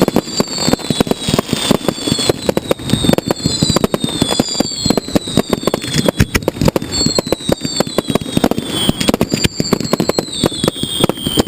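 Fireworks going off in a dense, continuous barrage: many rapid sharp bangs and crackles, overlaid with numerous falling whistles.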